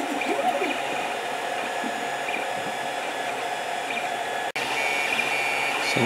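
Creality CR10 3D printer printing at about 600% speed: its fan whirs steadily while the stepper motors whine in short runs that glide up and down in pitch as the print head moves. The sound drops out for an instant about four and a half seconds in.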